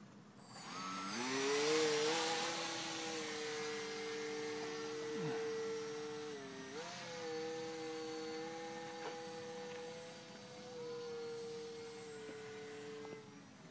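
Electric motor and propeller of a small foam 3D RC plane whining as it spins up about a second in. It then holds a fairly steady pitch, with brief dips and rises as the throttle changes, and fades out near the end.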